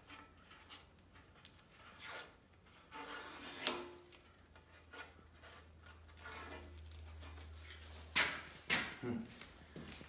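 Tape being peeled off the edge of a sheet-metal patch panel: soft, uneven tearing and rubbing, with a few louder rustles about eight seconds in.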